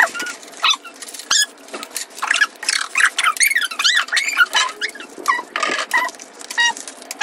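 Loose coins clicking and clinking on a tabletop as they are sorted and stacked by hand, with high, bending chirps throughout.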